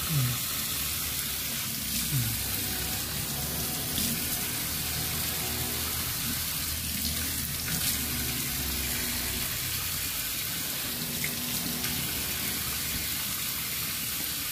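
Kitchen tap running steadily into a stainless steel sink, the stream splashing over hands as raw prawns are rinsed under it.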